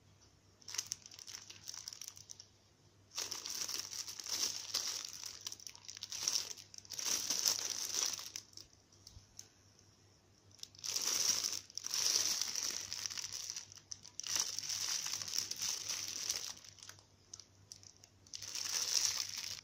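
Clear plastic packaging bag around a squishy toy crinkling as hands handle and turn it over. It comes in about five bouts with short pauses between.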